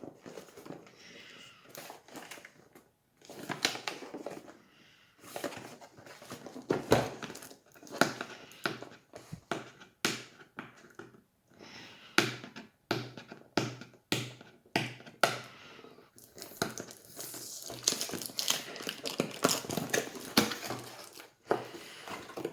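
Cardboard box and plastic packaging being handled and unpacked: crinkling and rustling with scattered knocks and clicks, and a denser stretch of rustling near the end.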